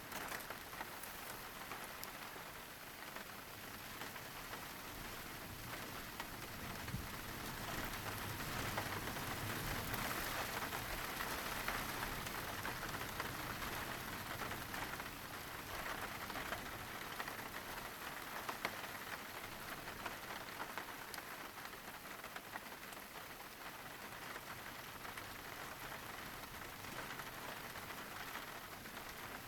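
Steady rain falling, with scattered sharp clicks of single drops, a little louder in the middle stretch.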